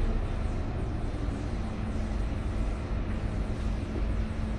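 Scania K230UB city bus heard from inside the passenger cabin: its rear-mounted diesel engine drones steadily with a faint constant hum, under road and cabin noise as the bus drives.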